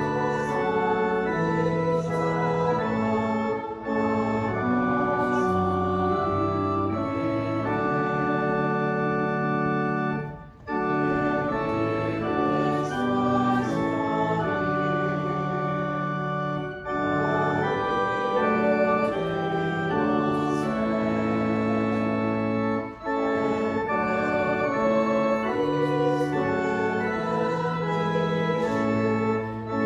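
Church organ playing a hymn tune in sustained chords. The music moves phrase by phrase, with a brief break between phrases about every six to seven seconds.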